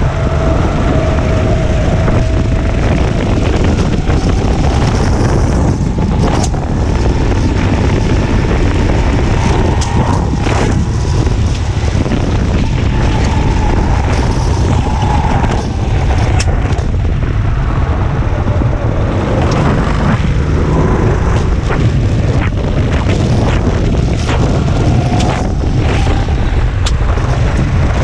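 Go-kart engine running hard, its pitch repeatedly rising and falling as the revs build and drop through the corners. Heavy wind rumble on the onboard camera's microphone covers it, with a few sharp clicks along the way.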